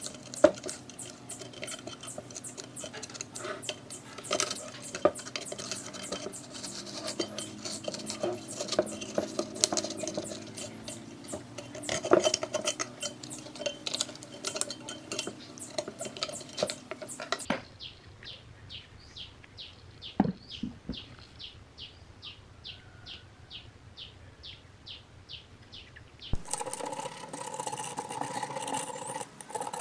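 Hard parts and hand tools clinking and clicking in rapid, uneven strokes. After a sudden change about two-thirds through, a regular run of light ticks about three a second, then another sudden change to denser clicking near the end.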